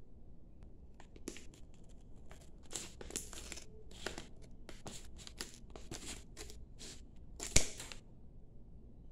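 Scissors cutting across the top of a foil tea pouch, with a string of short crinkling snips as the packaging is handled. One loud sharp snip comes near the end.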